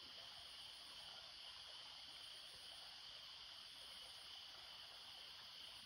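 Near silence: a faint, steady chorus of night insects, with no hound bay standing out.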